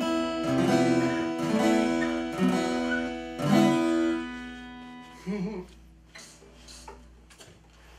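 Several acoustic guitars strumming together to the end of a minor-key tune. They finish on a last strummed chord about three and a half seconds in, which rings out and fades away.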